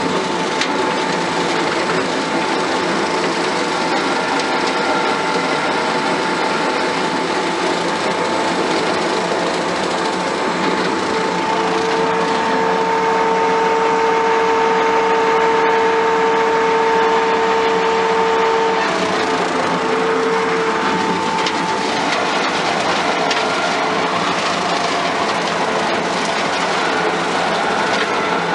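Skid steer running with its hydraulic-motor-driven rotary mower deck cutting grass: a steady mechanical drone with a steady whine that grows stronger for several seconds midway.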